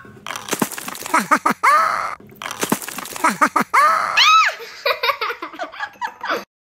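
A child's voice laughing and giving excited squeals with no clear words, in a string of short rising-and-falling cries; the loudest comes a little past the middle.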